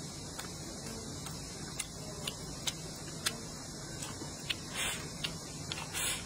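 Close-up eating sounds: chewing with scattered sharp mouth clicks and smacks, then two short slurps as food is sucked in from the chopsticks near the end, over a steady low hum.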